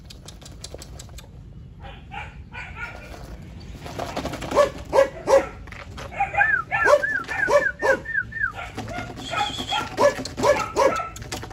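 Belgian Malinois puppies yipping and barking in short, quick calls, starting about four seconds in, with a rapid run of high yips midway.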